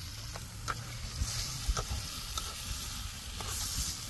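Masala frying in hot oil in a cooking pot, sizzling steadily, with a few sharp clicks of a spoon against the pot as it is stirred.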